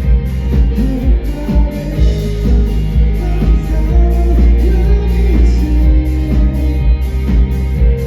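Live band performing a song at loud volume: drums keeping a steady beat under bass and electric guitar, with a voice singing over them.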